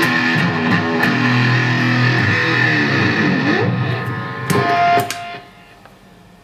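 Electric guitar played through a Vox Bulldog Distortion pedal: a distorted lead line with bent notes, ending on a held note that cuts off about five seconds in, leaving faint amplifier hiss.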